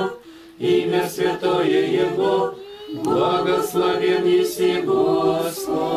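Several voices singing Orthodox liturgical chant a cappella, in sung phrases with two short breath pauses, one just after the start and one about halfway.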